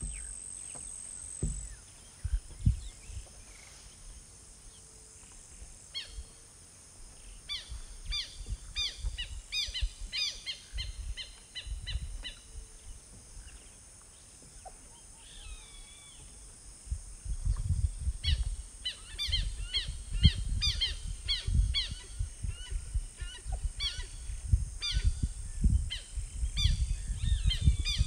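Wild birds calling outdoors: bursts of quick, repeated downslurred chirps, sparse at first and then busier from about two-thirds of the way in. Under them are a faint steady insect-like hiss and low gusty rumbles, like wind on the microphone, which grow in the second half.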